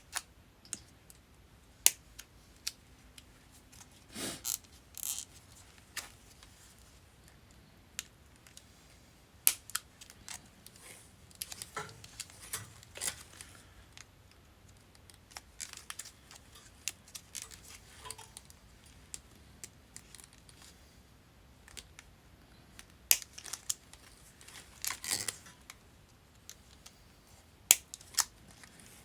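Hard, 40-year-old plastic sheathing being cut and cracked off a Honda ATC250ES wiring harness: irregular sharp snips and clicks with a few short scraping rasps, quiet between them.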